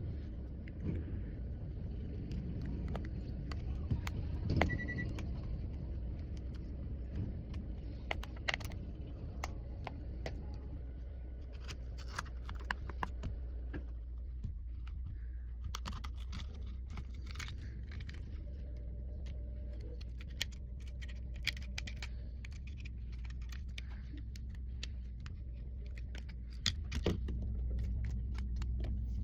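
Scattered light clicks and taps of small hand tools and phone parts being handled during an iPhone screen replacement, some in quick little runs, over a steady low hum.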